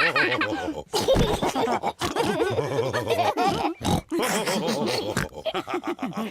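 Several cartoon pig voices laughing together in short, wobbling bouts broken by pig-like snorts and grunts.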